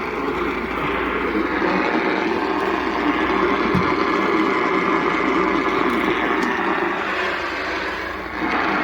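Radio static: a steady hiss from a weather radio receiver with weak reception, drowning out the broadcast. It dips briefly shortly before the end.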